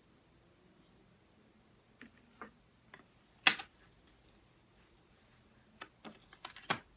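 Jigsaw puzzle pieces being handled and set down: scattered light clicks and taps, a louder knock about halfway through and a quick run of clicks near the end.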